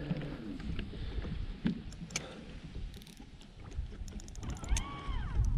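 Low rumble of wind and lake water against a small fishing boat, with scattered light clicks and ticks from handling the fishing rod and spinning reel during a cast. Near the end a short tone rises, holds and falls.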